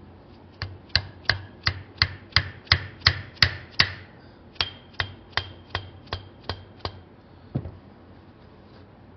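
Rapid hammer taps on steel cylinder parts, about three a second, each with a faint metallic ring. There are two runs, about ten strikes and then about seven, with a short break between them, followed by one duller knock.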